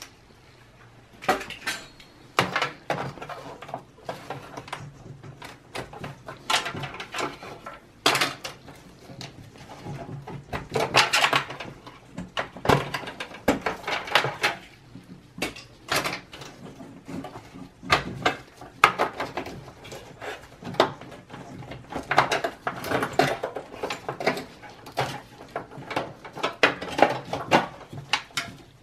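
Gloved hands handling the parts of an open desktop PC case: irregular clicks, rattles and clatter of sheet-metal and plastic parts, with cable connectors being pulled and rustling.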